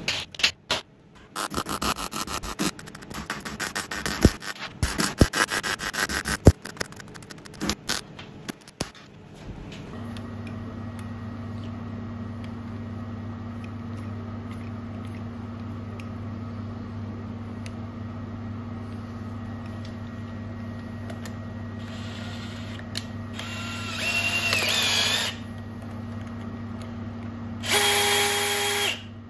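Metal parts clicking and rubbing as they are handled for several seconds, then a steady low hum. Later a cordless drill runs briefly, speeding up and slowing. Near the end it runs at a steady speed as a high whine, spinning the shaft and drill chuck of a homemade milling spindle attachment.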